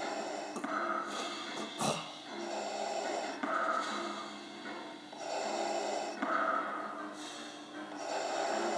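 Darth Vader's mechanical respirator breathing: slow, repeated hissing inhales and exhales, about three full breaths. A single sharp click sounds about two seconds in.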